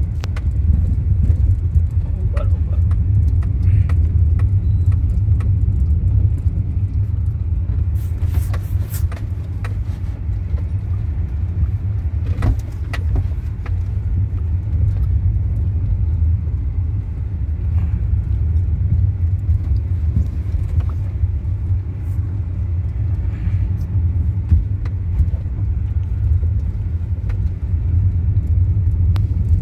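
Hyundai i10 Sportz heard from inside the cabin during a running test of its newly fitted CNG kit: a steady low engine and road rumble, with a few short clicks or rattles along the way.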